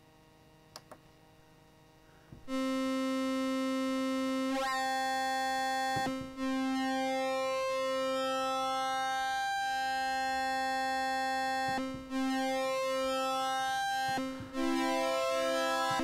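Synthesiser voiced by a Commodore 64 SID sound chip (MOS 6581) in oscillator sync mode. After a couple of faint clicks, a held note starts about two and a half seconds in; its tone sweeps and shifts as a control knob is turned while the pitch stays the same. The note is restruck a few times, and a second, higher note joins near the end.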